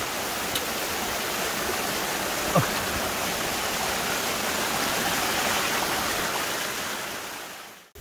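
Shallow mountain stream running over rocks: a steady rush of flowing water that fades out near the end.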